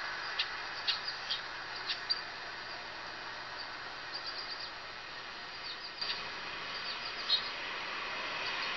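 Short, high bird chirps come and go in small clusters over a steady hiss of background noise.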